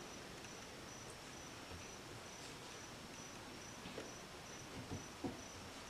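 Soft pats and rustles of a hand pressing a raw chicken thigh into a bowl of seasoned flour and cornmeal, with a few dull pats in the last two seconds. Under them, a faint, high, even chirp repeats a few times a second.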